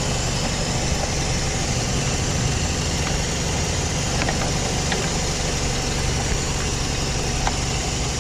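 Scion xA's 1.5-litre four-cylinder engine idling steadily under the open hood. A few faint clicks sound over it.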